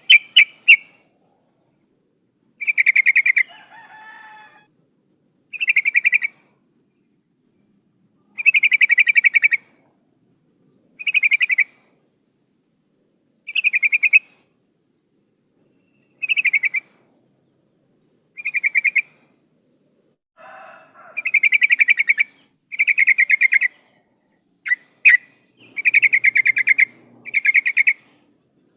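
Yellow-vented bulbul repeating a short, bubbly call, one burst every two to three seconds, given as a female's call to bring in a male.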